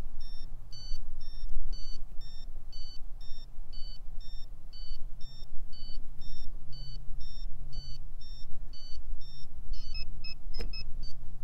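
Airsoft bomb prop beeping while its red defuse button is held down, about three short high electronic beeps a second. About ten seconds in, the beeps change to a quicker run at a different pitch as the prop signals that the bomb is defused. A low steady rumble runs underneath.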